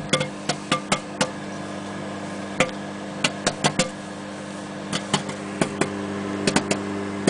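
Microwave popcorn popping in its bag inside a running microwave oven: irregular sharp pops, in quick clusters of several a second with short lulls, over the oven's steady hum.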